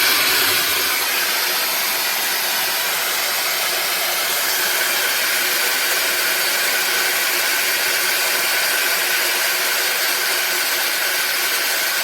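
Ni Zmir hair dryer with a high-speed brushless (BLDC) motor running steadily: a loud, even rush of air with a faint, steady high whine over it.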